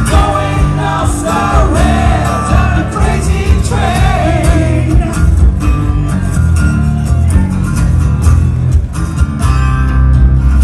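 Live amplified acoustic rock: two acoustic guitars strummed hard, with a singing voice over them for the first few seconds. The music then carries on without the vocal line.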